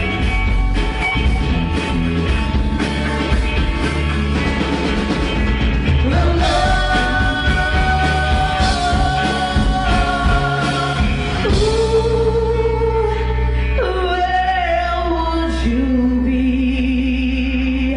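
Rock band playing with singing. From about six seconds in, long held notes ring out over a steady bass.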